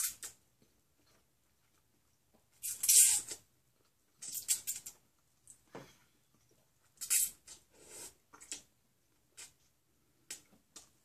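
A person slurping ramen noodles off chopsticks in several short noisy slurps, the loudest about three seconds in, with quieter mouth noises between.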